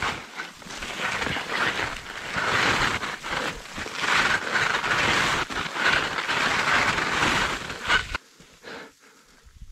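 Heavy, crusty wet snow hissing and scraping in repeated surges under skis on a steep slope, then cutting off abruptly about eight seconds in.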